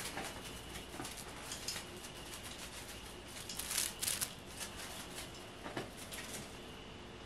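A cat moving on a hard desk top, its paws scratching and tapping the surface. There are scattered light scratches and rustles, with a brief flurry of sharper clicks about four seconds in.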